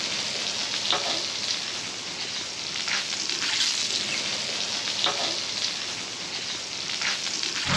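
Sausages and meat sizzling on a gas barbecue hotplate: a steady frying hiss.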